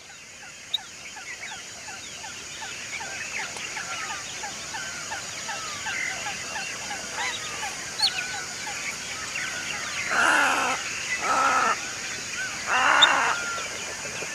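Nesting colony of water birds: many short chirping calls, with three loud, harsh squawks about ten, eleven and thirteen seconds in, over a steady high hiss.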